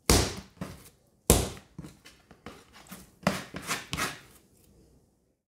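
Soft ball of sourdough bread dough slapped down onto the kitchen counter: two loud thumps about a second apart, then softer knocks and a dough scraper scraping the worktop as the dough is gathered.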